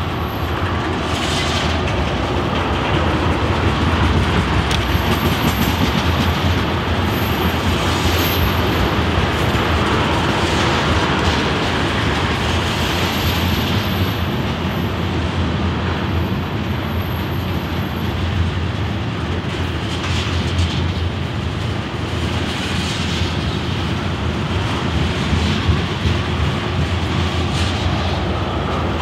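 Loaded ethanol tank cars rolling past: a steady rumble of steel wheels on rail, with occasional clacks as the wheels cross rail joints.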